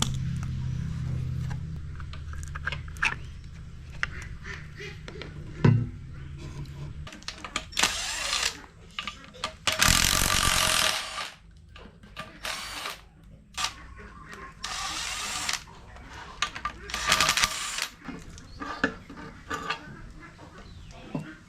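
A power tool running in short bursts of a second or so, about five times, with clicks and knocks of metal tools between the bursts while engine parts are unbolted. A steady low hum fades out after about seven seconds.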